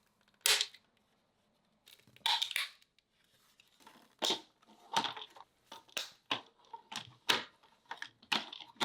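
Hard plastic mounting clips and brackets clicking and knocking as LED light bars are fitted and snapped into place. The sharp clicks are sparse at first, then come about twice a second in the second half.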